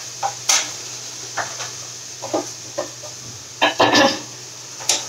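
Matches being struck on a matchbox to light a gas stove burner: a series of short scrapes and taps, with a louder cluster a little before four seconds in.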